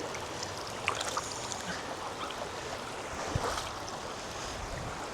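River water rushing steadily over rocks, with a few faint knocks.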